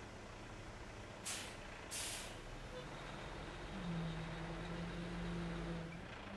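Concrete mixer truck's diesel engine running while it pours concrete down its chute. There are two short hisses of released air, about one and two seconds in. A little before the four-second mark the engine note drops lower and grows louder.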